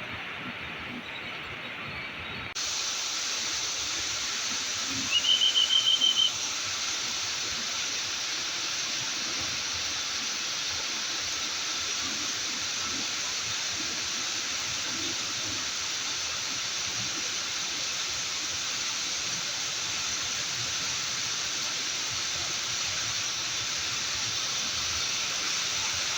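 Steady hiss of heavy rain, with one short, high-pitched horn blast from an arriving electric commuter train about five seconds in, lasting about a second.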